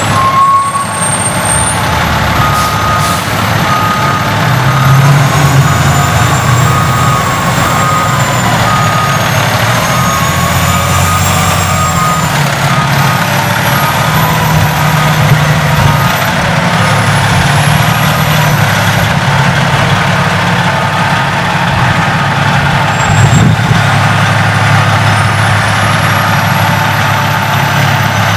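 Fire truck's Detroit Diesel engine pulling away and accelerating, its note rising and falling as it works through the gears. There is a short air-brake hiss just after the start, and a repeated high beep sounds through roughly the first half.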